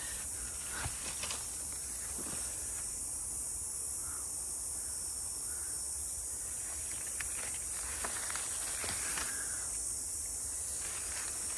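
A steady high-pitched hiss throughout, with a few faint rustles and snaps of footsteps pushing through brush on the trail.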